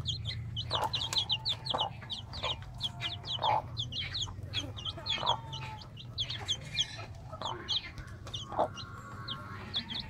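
Young chicks peeping continuously in rapid, high, thin cheeps, with a mother hen clucking every second or two among them. A low steady hum runs underneath.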